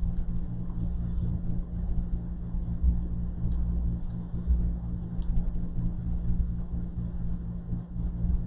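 Steady low hum and rumble of background machinery or room noise, with a few faint small clicks.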